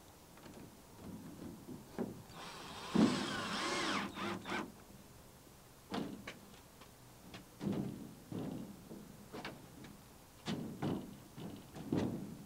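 A cordless drill-driver runs for a little under two seconds, its motor pitch shifting as it drives a screw into the greenhouse frame. Scattered knocks and clunks follow as the frame and panels are handled.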